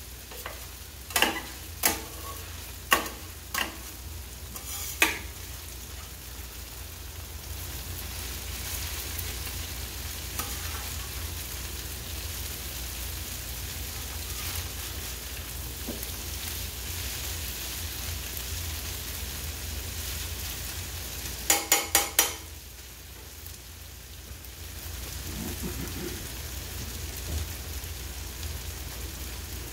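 Noodles, sausage and vegetables sizzling steadily on a flat-top griddle, with a metal spatula clacking against the steel cooktop several times in the first five seconds. About 22 seconds in, four quick, loud metallic taps of the spatula on the griddle.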